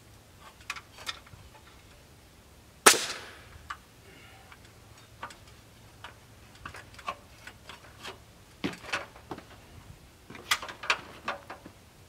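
Irregular knocks and clunks from work on a timber shed frame. One loud, sharp bang comes about three seconds in, and a quick cluster of knocks comes near the end.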